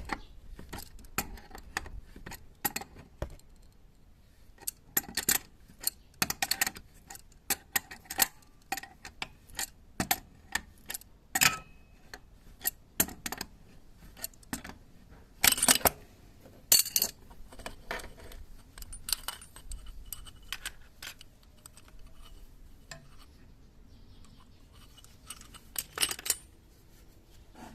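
Metal tools and small metal parts clinking, tapping and being set down in irregular sharp clicks, with the loudest around the middle and near the end.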